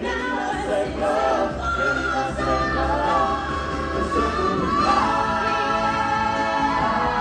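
Music with a group of voices singing together over an instrumental accompaniment.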